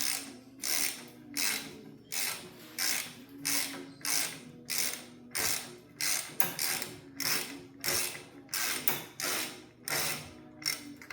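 Hand ratchet wrench being cranked back and forth on a bolt, about three strokes every two seconds, each stroke a quick run of clicks.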